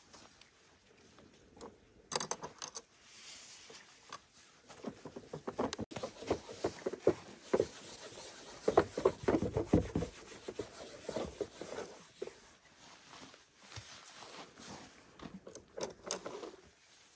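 Irregular handling noises: rustling, scraping and light knocks, busiest in the middle.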